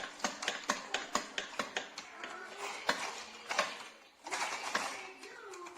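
Plastic toy gear pieces clicking and clattering as they are handled: a run of sharp, irregular clicks, a few a second.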